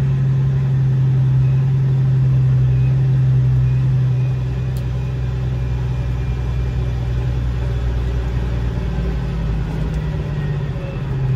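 Semi truck's diesel engine droning steadily, heard from inside the cab while driving; the drone gets quieter about four seconds in.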